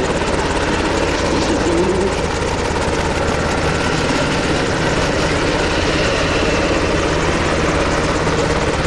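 Sikorsky S-70C helicopter running steadily, its rotor and twin turbine engines making a continuous loud sound that holds an even level throughout.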